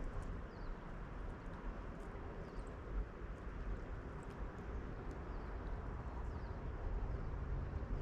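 Outdoor ambience: a steady rushing noise, heaviest in the low end, with faint short high chirps from small birds. A low engine hum comes in near the end.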